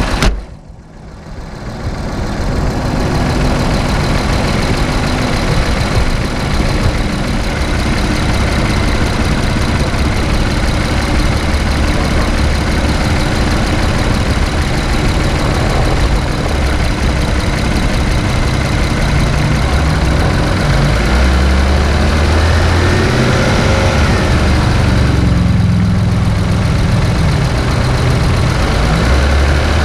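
2017 Infiniti Q50's VR30 twin-turbo V6 running, heard as a steady hum of engine and road noise inside the car. The low rumble grows stronger in the last several seconds. A sharp thump right at the start is the loudest moment.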